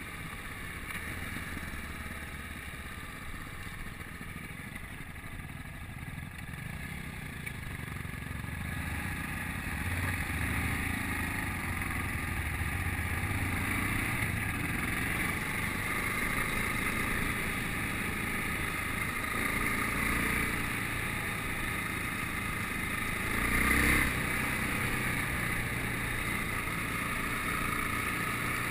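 Yamaha XT660Z Ténéré's single-cylinder engine running while riding, mixed with wind noise on the bike-mounted microphone. It gets louder about a third of the way through, with a brief louder surge near the end.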